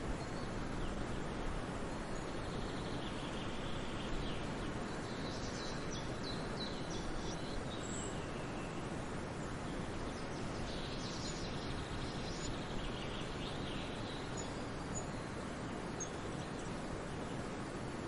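Steady rush of a shallow stream cascading over rock ledges, with small birds chirping over it in two bursts of quick calls, a few seconds in and again about eleven seconds in, and a few single high peeps near the end.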